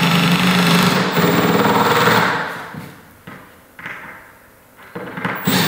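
Cordless drill-driver driving MDF screws into a chipboard drawer base. The motor buzzes steadily for about two seconds and fades out, a few short knocks follow, and the driver starts up again near the end.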